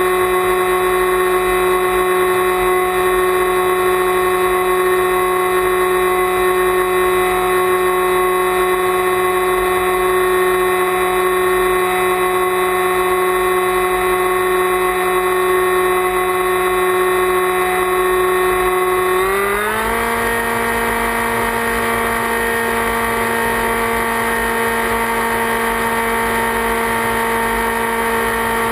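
Motor and propeller of an FPV flying wing running with a steady whine, heard through the onboard camera. About two-thirds of the way through, the pitch glides up and holds higher as the throttle is raised.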